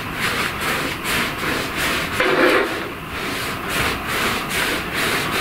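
A towel shuffled underfoot across a laminate wood floor, wiping up spilled tubeless tyre sealant: repeated rubbing swishes, a few strokes a second.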